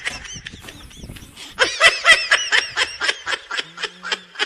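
Someone laughing in quick, high-pitched bursts, about eight a second, from around a second and a half in until near the end.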